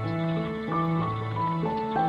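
Background music: a gentle melody of held notes changing every few tenths of a second over a repeating bass line.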